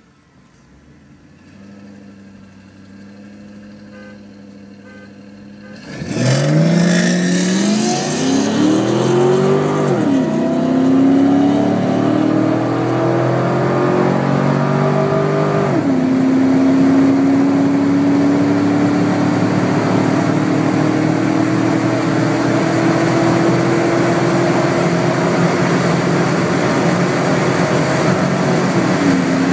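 V8 car engine heard from inside the cabin, running low and steady, then about six seconds in opening up to full throttle in a hard acceleration run. The pitch climbs and drops back at gear shifts about ten and sixteen seconds in, then climbs slowly through a long pull in a higher gear.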